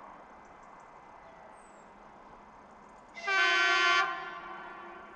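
ЭС1 Lastochka electric train's horn: one loud blast of about a second, starting about three seconds in and trailing off afterwards.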